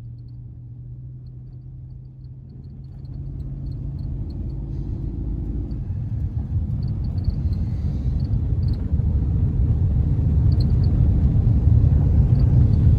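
Truck running, heard from inside: a steady hum over the first few seconds gives way to a low rumble that builds as the truck gets under way.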